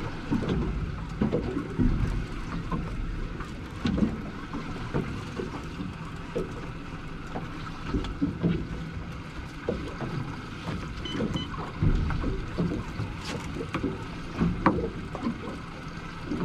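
Sounds aboard a small fishing boat at sea: irregular low thumps and splashes of water against the hull over a steady hum.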